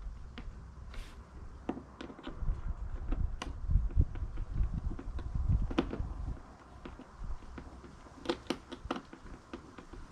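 Scattered clicks, taps and knocks of a Craftsman 2200i inverter generator's cover being handled and fitted back into place, over low handling rumble. There is a quick cluster of sharper clicks near the end.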